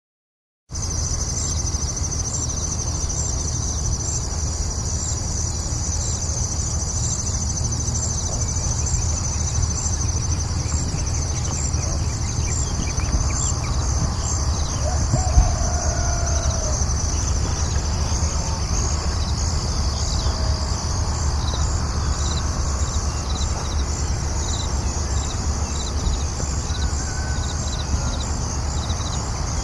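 Farm morning ambience: a steady, rhythmic high chirping of insects such as crickets over a low rumble, with a few brief bird calls around the middle and near the end. It starts after a moment of silence.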